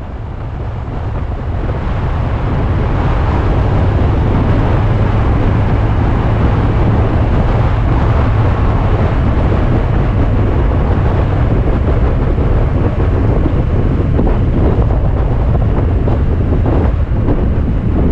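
Alfa Romeo Spider driving, heard from an onboard camera: steady engine and road rumble with wind buffeting the microphone, fading in over the first few seconds.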